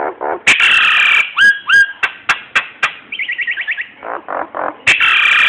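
Nias hill myna singing a varied sequence: a harsh screech, two rising whistles, sharp clicks and a quick stuttered run of notes, the sequence starting over near the end.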